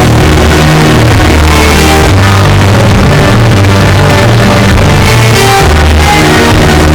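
Loud rock music with heavy bass and shouted vocals.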